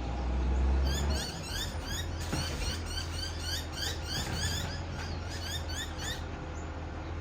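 Many small birds chirping busily, short rising calls several times a second, over a steady low engine rumble that is strongest in the first second.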